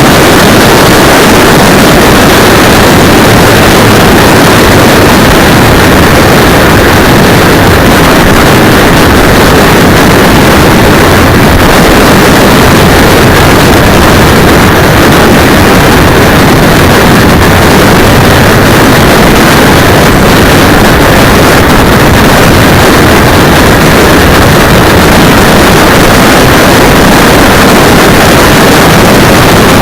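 Motorcycle on the move, heard through a cheap camera's microphone strapped to the handlebar brake cylinder: a steady, heavily overloaded roar of wind and engine noise that stays at the same level throughout.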